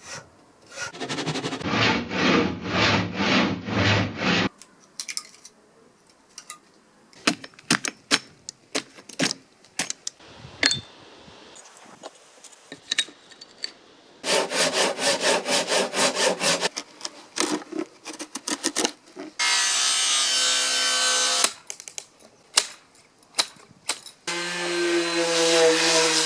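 A series of hand-tool and power-tool sounds, which PANN takes for sawing on wood. It opens with rhythmic rasping strokes about two a second, followed by scattered clicks and taps and then a fast run of strokes. A steady hiss comes next, and near the end a steady pitched motor hum starts.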